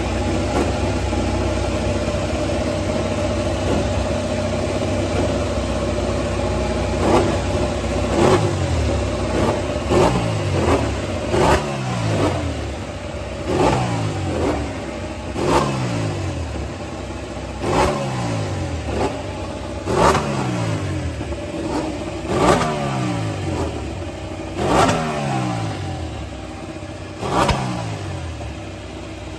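Pramac Ducati Desmosedici MotoGP bike's V4 engine idling, then blipped hard about every two seconds from about seven seconds in, each rev snapping up and falling quickly back toward idle.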